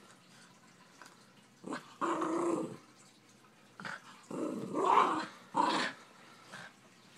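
Miniature schnauzer growling in several short bouts, the longest lasting nearly a second, worked up over his deer antler chew.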